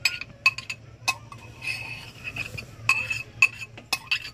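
Metal spoon scraping and clinking against a ceramic bowl while chili is spooned out of it: many sharp, irregular clinks, some with a brief ring.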